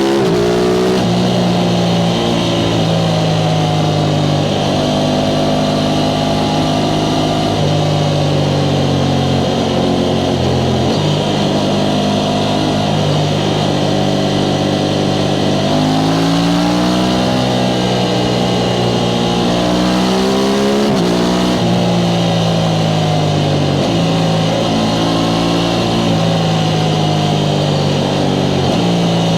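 Aprilia Tuono 660 Factory's parallel-twin engine through its stock exhaust, riding along: it holds steady revs for stretches, with the pitch stepping to new levels several times and rising and falling with the throttle around the middle.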